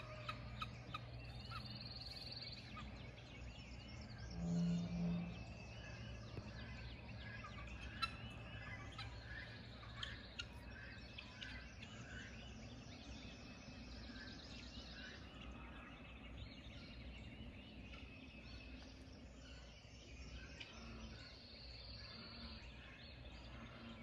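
Dawn chorus of birds: many short chirps and warbling songs, with a high sustained warble near the start and again near the end. About four and a half seconds in, a louder low call stands out, over a faint low hum that fades after about ten seconds.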